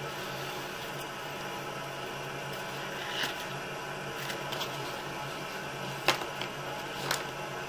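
A steady low electrical hum with faint hiss, broken by several short clicks or taps, the loudest about six seconds in and another about a second later.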